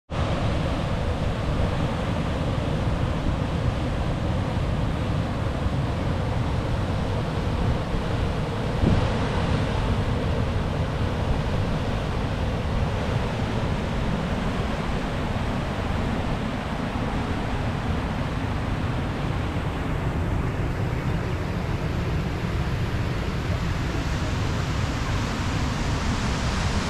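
Steady rushing noise of moving water, with wind buffeting the microphone. There is a brief thump about nine seconds in.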